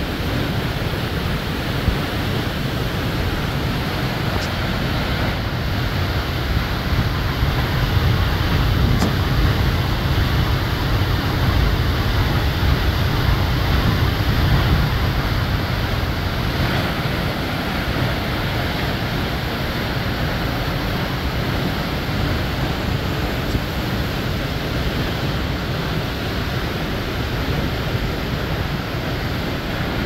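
Cascada Blanca waterfall's plunging water, a loud, steady rushing noise with a deep rumble that swells a little partway through.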